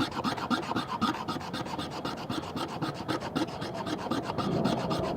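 Leatherman Signal multitool's blade shaving thin curls off a stick to make a fuzz stick, a fast run of short rasping strokes.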